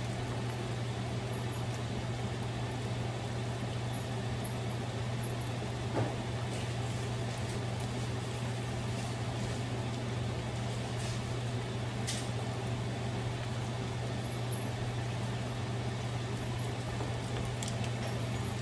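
Butter and minced garlic sizzling steadily in a stainless steel wok, over a steady low hum, with a faint click or two.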